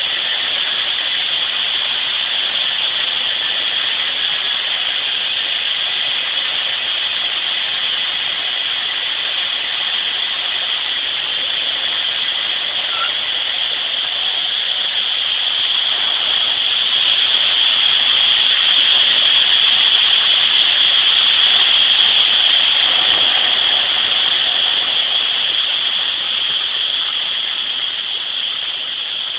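Steady rushing noise of harvest machinery at work, swelling louder for several seconds past the middle.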